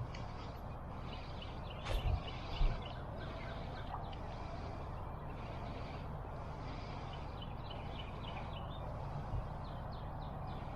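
Birds calling in many short, repeated chirping notes over a steady low background rumble, with a couple of soft thumps about two seconds in.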